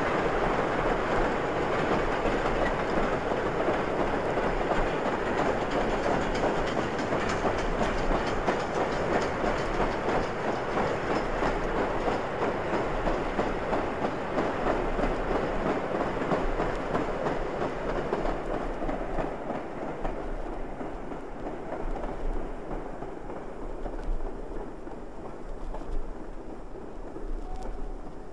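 Train hauled by a GWR 'Hall' class 4-6-0 steam locomotive running by, its wheels clattering over the rail joints. It fades away over the last ten seconds.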